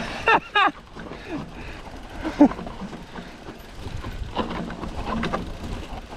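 Mountain bike riding over a rough trail, picked up by a chest-mounted camera: a steady rush of tyre and wind noise with rattling. Two short loud pitched sounds come about half a second in, and a sharp knock a couple of seconds later.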